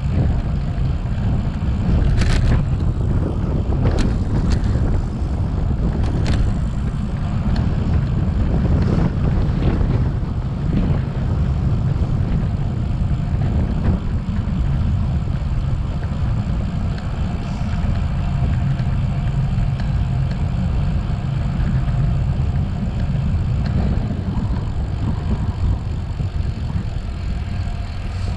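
Heavy wind buffeting and rumble on the microphone while riding, with a few sharp clicks in the first several seconds.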